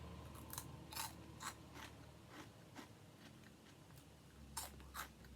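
Faint, crisp crunching of popped potato sticks (aged white cheddar Smart Fries) being bitten and chewed, a few sharp crunches in a row, then a pause, then two more near the end.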